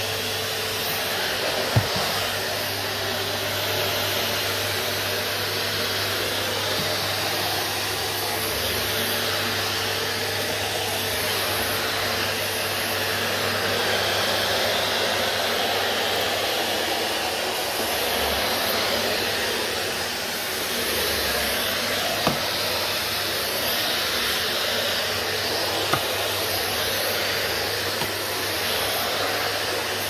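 Numatic Henry XL NVR370-11 tub vacuum cleaner running steadily as its floor tool is pushed over a laminate floor, with a steady low hum under the rushing of the suction. Three brief knocks stand out, about two seconds in and twice in the last third.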